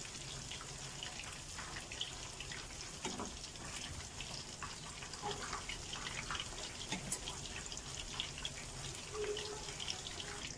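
Breaded chicken drumsticks deep-frying in hot oil in a wok: a steady sizzle with many small crackles and pops.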